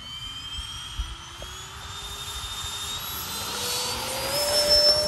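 Twin 80 mm electric ducted fans of a Freewing A-10 Thunderbolt II RC jet, fitted with turbine-sound whistles, spooling up on the takeoff roll. It is a rising whine that grows steadily louder as the jet accelerates down the runway, with a brief knock about a second in.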